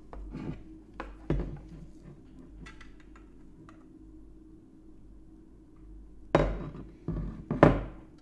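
Light clicks of plastic petri dishes being handled, then a quiet stretch while the agar pours. Near the end come three loud knocks as the glass media bottle is set down on the wooden desk and a dish lid is closed.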